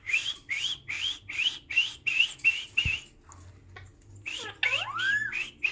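Pet parrot calling: a run of about eight short chirps, roughly three a second, then after a pause a single smooth whistle that rises and falls in pitch.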